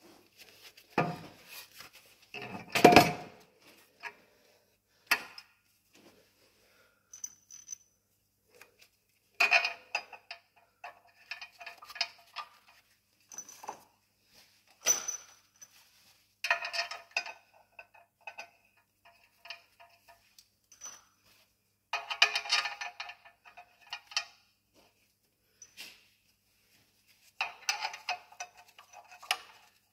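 Metal clinks and clanks of a Scania truck clutch pressure plate being fitted over the clutch disc and bolted to the flywheel, with a heavy knock about three seconds in and several short bursts of rattling metal.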